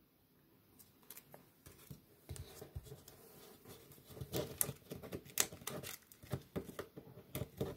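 Mini baseball cards being handled and laid down on a table: faint, irregular small clicks, taps and rustles of card stock, starting about two seconds in.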